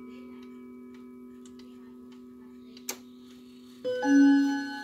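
Howard Miller wall clock ticking, with one sharp click about three seconds in; near the end its hammers begin striking the chime rods, the ringing notes the loudest sound.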